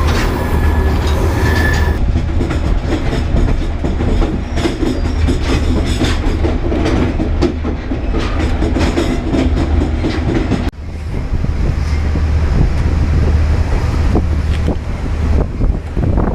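El Chepe passenger train running along the track, heard from beside a carriage door: a steady rumble with a strong low hum and frequent wheel clicks and rattles. The sound cuts sharply for a moment about two-thirds of the way through.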